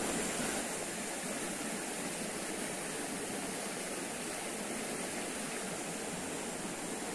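Steady rush of a small river's running water.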